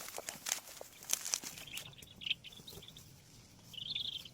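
Dry scrub and thorny vines rustling and crackling with footsteps as someone pushes through the brush, the crackles mostly in the first second and a half. A small bird chirps several times in the second half, most loudly near the end.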